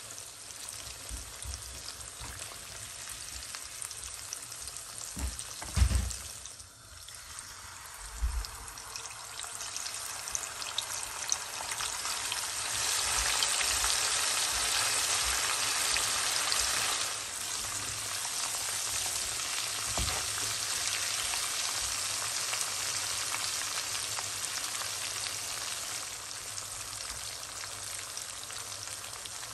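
Chicken pieces deep-frying in hot oil in a wok, a steady crackling sizzle that grows louder for a few seconds around the middle. A few dull knocks come in the first third.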